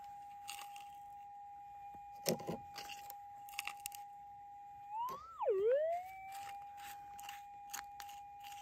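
Minelab GPX 6000 metal detector holding a steady threshold tone. About five seconds in, the tone swoops up and then sharply down before settling back: the target signal as a scoop of soil holding a gold nugget is passed over the coil. Dirt and gravel rattle and scrape in a plastic scoop now and then.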